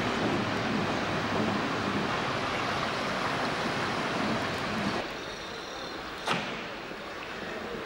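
Train coaches running past along a platform, a steady rumble of wheels on rails that stops suddenly about five seconds in. After it, quieter station background with a single sharp knock, like a carriage door shutting.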